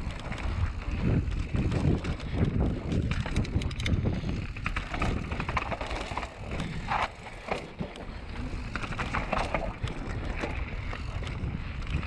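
Commencal Meta V4.2 mountain bike riding fast down dirt singletrack: a steady rumble of knobby tyres over dirt and roots, with the chain and frame rattling and clicking over the bumps, and wind buffeting the microphone.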